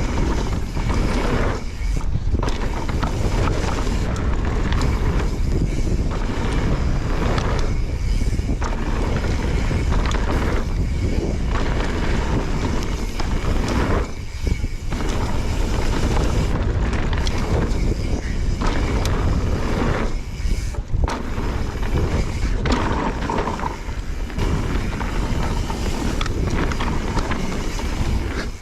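Wind rushing over the camera microphone and a mountain bike's tyres rolling on a dirt trail while riding. The sound is loud and steady, with short dips about two seconds in, around fourteen seconds and around twenty-one seconds.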